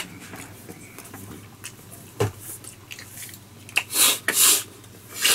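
A couple of light clicks, then two or three short hissy scrapes about four seconds in as the plastic cap of a sauce bottle is twisted open.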